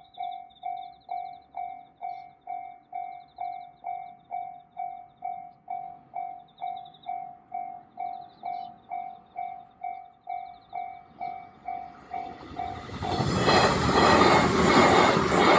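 Japanese railway level-crossing warning bell ringing its steady 'kan-kan' about twice a second. From about twelve seconds in, a train passes loudly over the crossing and its running noise drowns out the bell.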